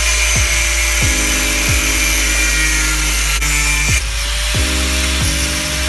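A power tool cutting the ends off steel bolts, a steady high hissing grind, under background music with a beat.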